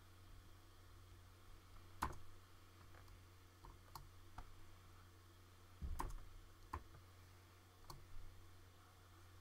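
Scattered sharp clicks and taps from computer input devices at a desk, about ten in all and loudest about two seconds and about six seconds in, over a faint steady low hum.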